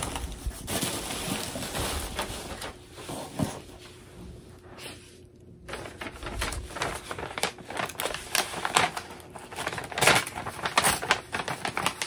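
A package being unpacked by hand: irregular crinkling, rustling and light clicks of wrapping and cardboard. It is quieter for a moment around the middle and gets busier near the end.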